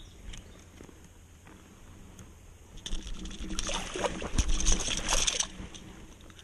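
Water splashing and sloshing for about two and a half seconds, starting about three seconds in, with a dull knock in the middle of it.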